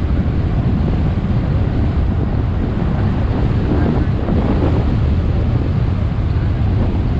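Steady wind noise on the microphone of a moving CNG auto-rickshaw, over the low rumble of its engine and tyres on the road.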